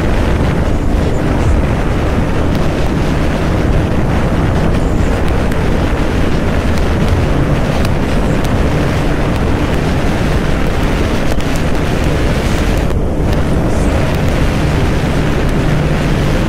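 Wind buffeting the microphone of a rider on a moving motorcycle, with the motorcycle's engine and road noise running steadily underneath.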